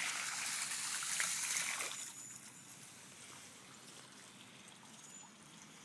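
Water spewing up out of the ground into a flooded lawn, a steady rushing hiss that drops off about two seconds in to a faint trickle as the spew eases.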